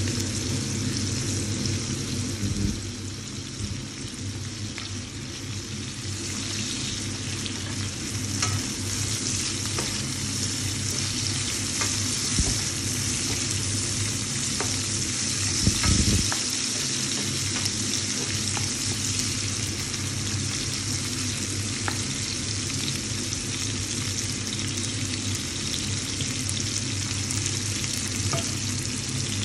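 Asparagus, cherry tomatoes and red onion sizzling in oil in a frying pan: a steady frying hiss with scattered small pops, over a steady low hum. There is a brief thump about sixteen seconds in.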